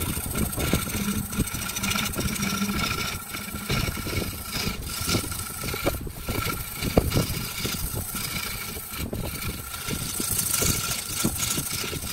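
Wood lathe motor running with a steady whine while a hand-held turning tool cuts into the spinning wooden blank, giving an uneven, scratchy scraping as shavings come off.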